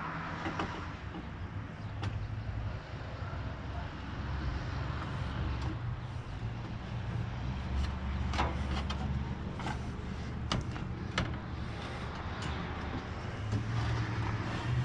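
Scattered knocks, clicks and scrapes of a replacement A/C condenser and the plastic parts around it being handled and worked into place in a truck's front end, over a steady low rumble.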